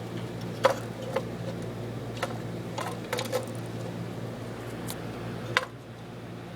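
Handling of a vintage Hoover Model 3 upright vacuum cleaner: a series of sharp clicks and knocks of its parts being moved, over a steady low hum. After the last knock, a little after five seconds in, the overall sound drops slightly.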